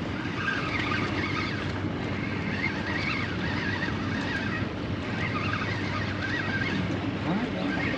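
Boat motor running steadily on the water.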